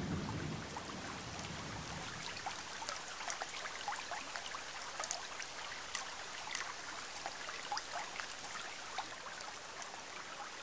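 Rain falling on the still water of a shallow pond: a steady patter with many small separate drops plinking on the surface.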